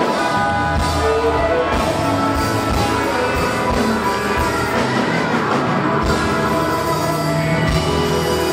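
Live blues band playing, with several blues harmonicas blowing held, wailing notes together over electric guitar and a steady drum beat.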